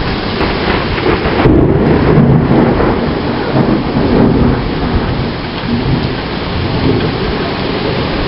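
Torrential wind-driven rain pouring down in a severe thunderstorm. Thunder rolls from about a second in, loudest for the next three seconds, then fades into the downpour.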